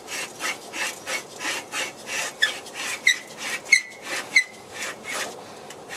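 Fiat 500's steel exhaust pipe being twisted and worked out of its sliding coupling: a run of short metal-on-metal scraping strokes, about three a second, with brief squeaks now and then. The scraping thins out near the end as the pipe comes free.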